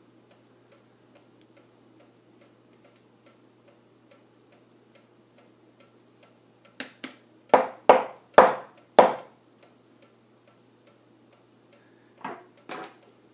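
Clicks and clacks of small metal lock parts being handled while a Medeco lock is taken apart: a run of faint ticks, then four loud sharp clacks about seven to nine seconds in, and two more near the end.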